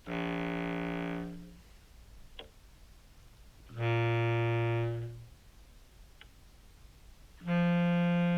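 Three separate sustained contrabass clarinet sample notes, played through an envelope filter and a POG2 octave pedal with no fuzz, each lasting a little over a second. The middle note is the lowest, and the last is still sounding at the end. Faint clicks fall in the gaps between notes.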